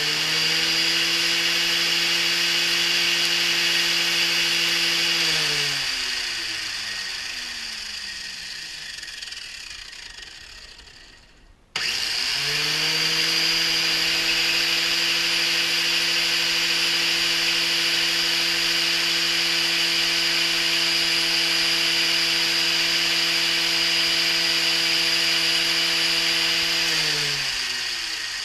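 Angle grinder with a general-purpose grinding wheel, used on a brazed carbide lathe tool bit. It runs at a steady high whine, winds down with falling pitch after about five seconds, starts up again near the middle, runs steadily and winds down again near the end.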